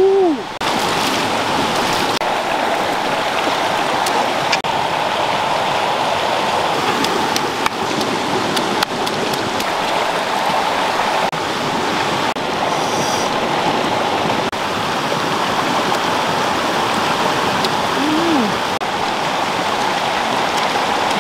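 Fast stream rushing over rocks, a steady loud wash of water. A brief pitched sound, rising then falling, is heard right at the start and again near the end.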